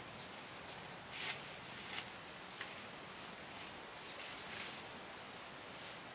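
A steady, high insect drone, with four brief rustles of dry leaves and brush underfoot as a person walks away through the undergrowth, the loudest about a second in.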